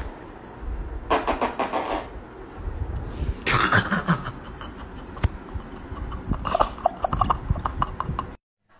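Handling noise from a phone being moved about while it records: rustling and scattered knocks and clicks in short bursts. The sound cuts off abruptly near the end.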